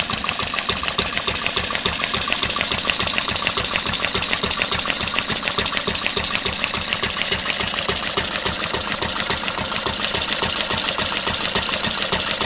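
Half-scale model of a 3 hp Stickney Jr. hit-and-miss engine running, a rapid, steady mechanical clatter of even beats.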